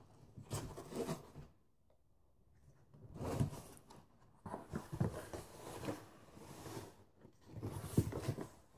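Cardboard package being wrestled open by hand: short spells of scraping and rustling cardboard and packing, with a sharp knock near the end.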